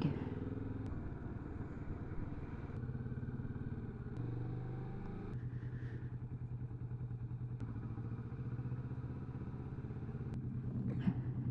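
Motorcycle engine running steadily with a fast, even exhaust pulse; the note steps up about five seconds in.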